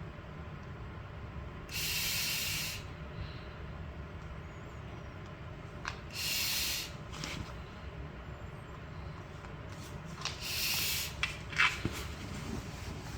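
Three short hissing bursts of air, about four seconds apart, each under a second long, with a few faint clicks between them.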